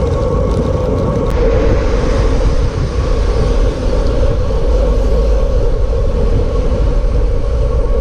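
Wind buffeting the microphone of a handlebar-mounted camera on a road bike riding in the rain, a steady low rumble, with the hiss of tyres on the wet road rising about a second in.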